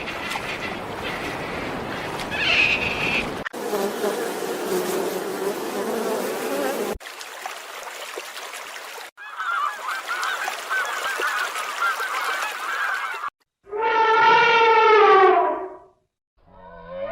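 A run of short animal-sound clips joined by abrupt cuts: noisy outdoor stretches with faint wavering calls, then a loud, drawn-out animal call lasting about two seconds, slightly falling in pitch, near the end, and another call starting just before the end.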